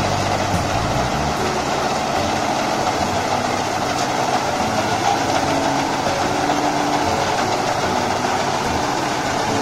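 Mini combine harvester running steadily as it cuts and threshes standing rice: the engine and machinery make a continuous loud, even noise.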